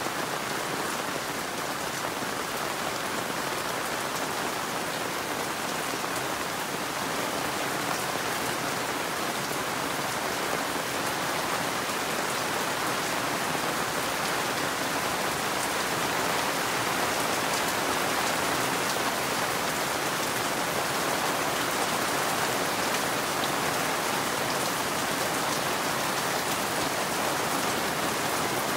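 Steady rain falling, a dense even hiss of drops with fine patter, growing a little heavier about halfway through.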